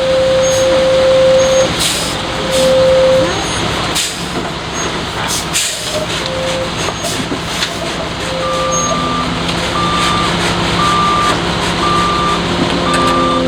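Front-discharge concrete mixer truck running, with several short hisses of air and a lower steady tone sounding on and off. Past the middle, a backup alarm starts beeping about once a second.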